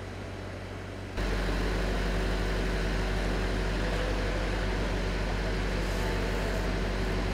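Articulated boom lift's motor and hydraulic drive running with a steady low hum as the platform moves. The hum gets much louder and fuller about a second in.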